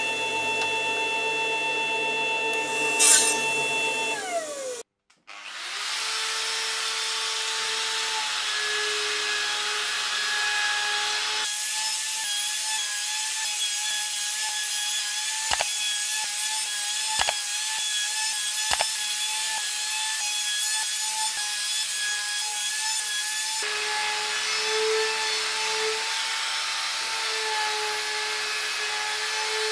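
Miter saw motor running, with a brief sharp noise about three seconds in, then winding down to a stop. After a short gap, a handheld plunge router runs steadily with a whine, trimming the edge of a plywood jig, with three light knocks midway.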